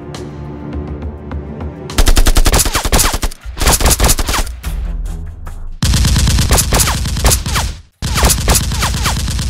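Background music, then from about two seconds in, loud bursts of rapid automatic gunfire sound effects, several long volleys separated by short breaks.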